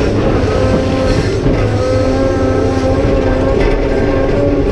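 Cat 390F excavator's C18 diesel engine and hydraulic pump working hard under load: a loud, steady drone with a whining pump tone that dips and rises slightly in pitch.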